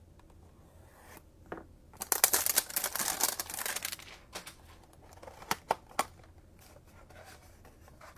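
The packaging of a Panini Mosaic football-card hanger box being torn open. A dense crackling tear lasts about two seconds, followed by a few sharp snaps.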